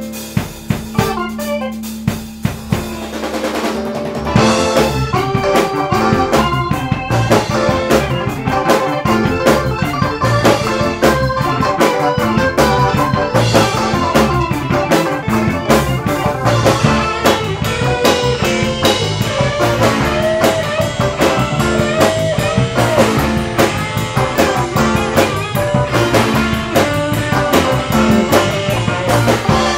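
A rock band rehearsing: drum kit, electric guitar and keyboards playing together. It opens with a held note under separate drum hits, and the full band comes in about four seconds in.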